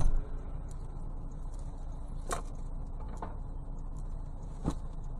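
Steady low hum of a stopped car idling, heard from inside the cabin, with a thump right at the start and a few light knocks later, about two, three and four and a half seconds in.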